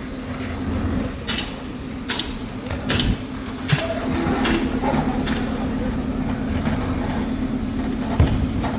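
A JCB machine's engine running steadily, with a series of sharp metallic knocks in the first half and a dull thump near the end.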